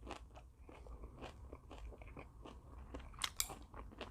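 A person chewing food close to the microphone: a run of small mouth clicks and crunches, with two sharper crunches a little after three seconds in.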